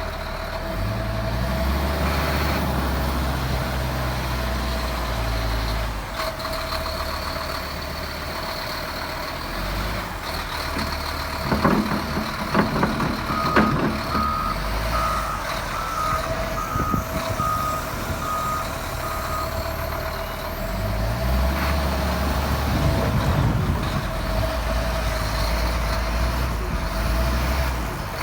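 Heavy diesel equipment working snow: an engine running and revving up and down under load. A reversing alarm beeps about twice a second for several seconds in the middle, just after a few loud clanks.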